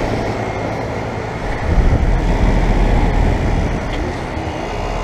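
A 2014 Payne 5-ton central air conditioner condensing unit running, its scroll compressor humming under the steady rush of the condenser fan. A deeper low rumble swells for a second or two in the middle.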